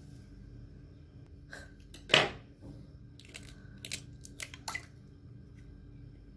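Eggs being cracked for the mixer jar: one sharp knock of shell against a hard rim about two seconds in, then a few light clicks and crunches of shell being pulled apart. A faint steady hum runs underneath.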